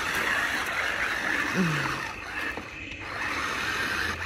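Hot Wheels Rhinomite RC monster truck's electric drive motor and gears whirring steadily as it drives through mud and puddles.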